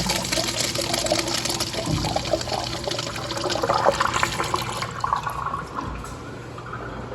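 A toilet or urinal flushing: a loud rush of water that dies down about five seconds in to a quieter run of water.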